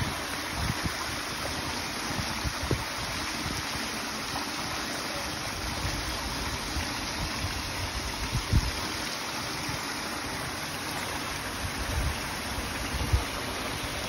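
Water pouring from a spout and splashing down over stone ledges onto a flagstone pad: a steady rushing splash. A few brief low thumps stand out over it, the strongest a little past halfway.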